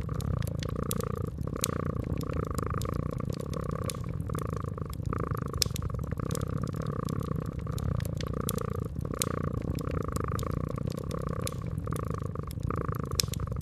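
Domestic cat purring steadily in a regular rhythmic pulse, over a fireplace's crackle of sharp little pops scattered throughout.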